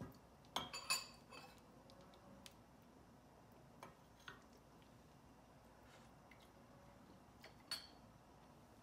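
A few light clicks and taps of spoons against a stainless steel stockpot as thick porridge is stirred, a cluster about a second in, two more near the middle and one near the end; otherwise near silence.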